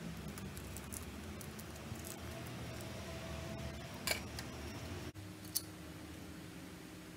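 Small plastic parts being handled: scattered light clicks and taps, with a sharper click about four seconds in and another near the end, over a steady low hum.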